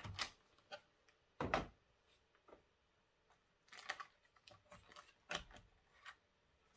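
Packaging being handled as a model locomotive comes out of its box: scattered clicks and knocks, the loudest a dull thump about a second and a half in, with short rustles of the clear plastic bag wrapped around the model.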